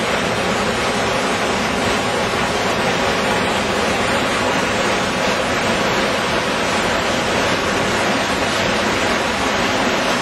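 Stormwater runoff from a short, hard rain rushing steadily through a concrete channel and churning as turbulent white water into a rocky ravine.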